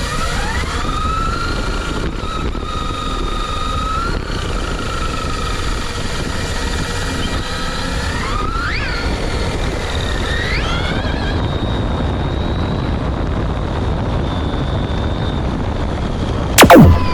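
Brushless electric motor of an RC car whining over a steady rush of wind and tyre noise. Its pitch rises as it speeds up, about half a second in and again around eight and ten seconds in. Near the end comes a loud, very quick downward-sweeping tone.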